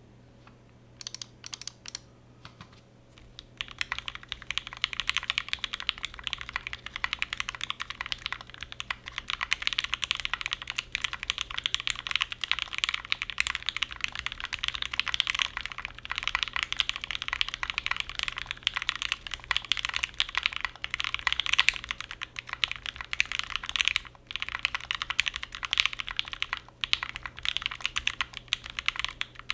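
Typing on an ai03 Meridian mechanical keyboard with lubed, filmed Marshmallow linear switches, GMK keycaps and an aluminum top-mount plate. A few single keystrokes come first, then fast, continuous typing from about four seconds in, with a brief pause near the end.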